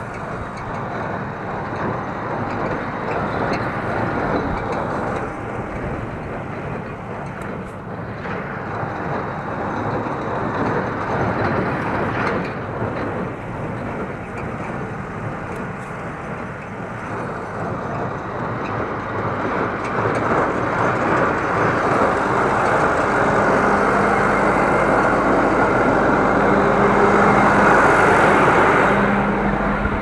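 Welger AP53 conventional baler working behind a Massey Ferguson 6150 tractor, making and pushing out hay bales, with the tractor engine running; the engine note comes through louder over the last several seconds.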